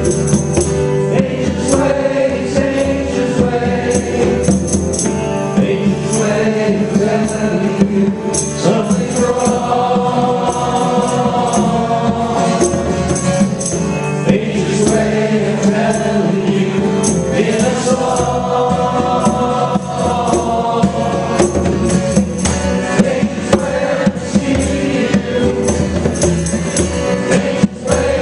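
Live music from a small band: congas struck in a steady rhythm under sung vocals with harmony parts and other instruments, playing without a break.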